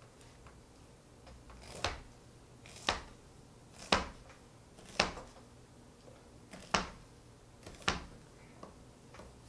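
A series of sharp clicks or knocks, six strong ones about a second apart with one longer pause midway.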